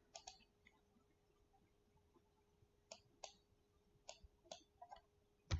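Faint, scattered clicks of a computer mouse and keyboard, about eight in all, some in quick pairs.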